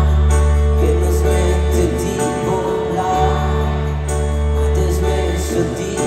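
Live band playing a pop song through an arena sound system, loud, with deep sustained bass notes that change a few times.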